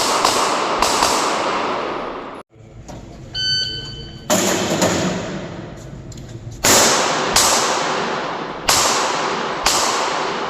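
Handgun shots, about eight, fired roughly a second apart with a pause in the middle, each followed by a long echoing decay. A short ringing tone sounds about three and a half seconds in.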